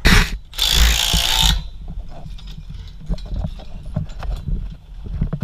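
Cordless power driver with a socket, run in two short bursts in the first second and a half to tighten the bolts on scaffold-tube clamps. It is followed by scattered light clicks and knocks of metal tubes and fittings being handled.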